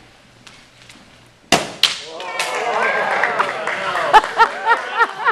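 A balloon bursts with a sharp loud pop about a second and a half in, followed at once by a smaller crack. A group of people then cheers and laughs.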